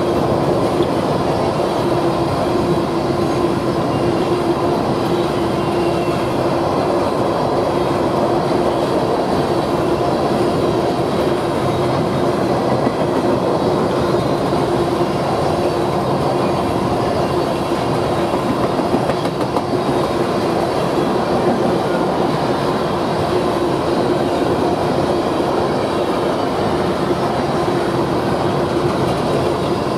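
Freight train cars rolling past at speed: a steady rumble of wheels on rail, with a steady tone running through it.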